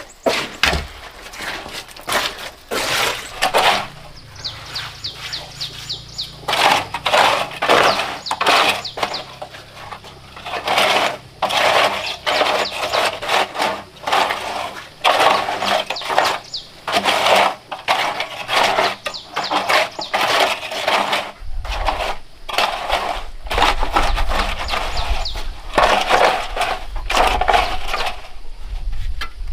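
Repeated hard scraping and knocking strokes, about one or two a second, like a tool working on a hard material. A low rumble starts about two-thirds of the way in.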